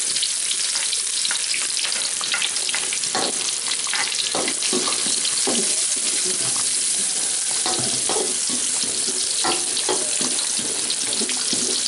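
Sliced shallots frying in hot oil in a wok, with a steady sizzle and irregular scrapes of a wooden spatula stirring against the pan.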